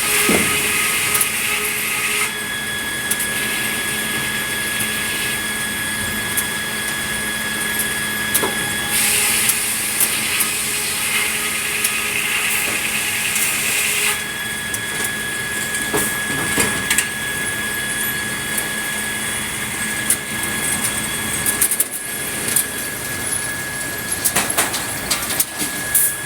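Sawmill saw running steadily with a constant whine, cutting red pine: the hiss grows brighter at the start and again for about five seconds in the middle. A run of knocks and clatter comes near the end.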